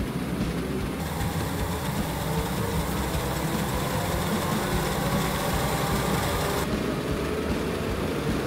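Treadmill running, its motor humming and the belt whirring steadily under a Lego Technic truck model whose wheels roll on the belt. A brighter hiss is added from about a second in until near seven seconds.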